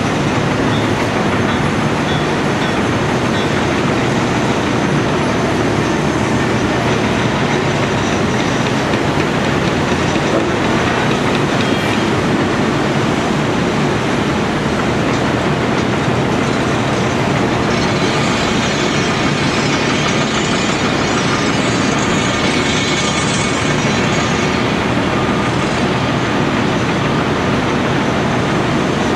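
Heavy diesel construction machinery running steadily, typical of a Caterpillar 345C L excavator working its hydraulics while lifting a compact track loader. A high-pitched whine joins the engine noise about two-thirds of the way in and fades a few seconds later.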